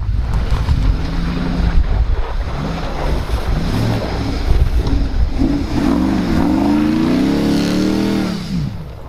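Lifted pickup truck's engine running with a low rumble, then revving in the second half, its pitch dipping, climbing and falling away near the end.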